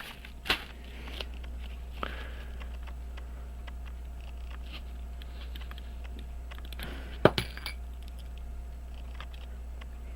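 Small metallic clicks and taps of tools and tiny watch parts on a work table: a few single clicks early on and a louder quick cluster about seven seconds in. A steady low hum runs underneath.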